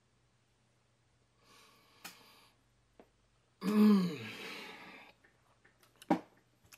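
A man's wordless vocal reaction: a soft breathy exhale, then a loud groan falling in pitch about three and a half seconds in. A few short clicks follow near the end.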